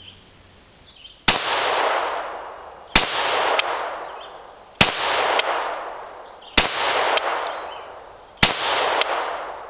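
An FN PS90 short-barreled carbine in 5.7x28mm firing five single semi-automatic shots, about one every two seconds. Each report has a long decaying tail, and most are followed by a fainter crack about half a second later.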